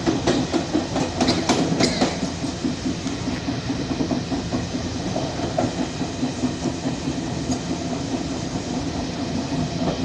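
Passenger train running along the track, heard from inside the carriage. Its wheels click several times over rail joints and points in the first two seconds, then it settles into a steady running rumble.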